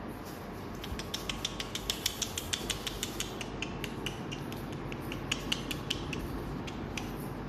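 Grooming scissors snipping through a poodle's coat: quick sharp snips, about four or five a second from about a second in, then sparser and stopping about a second before the end.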